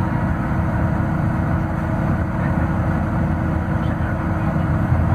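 Scania DC09 five-cylinder Euro 6 diesel engine of a city bus running steadily at idle while the bus stands still, heard from inside the passenger cabin.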